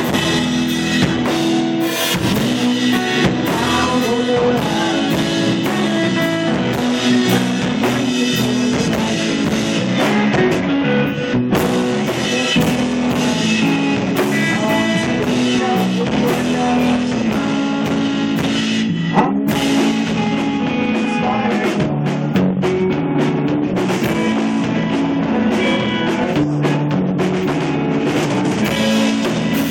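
A live rock band playing loud and steady, with an electric guitar over a full drum kit.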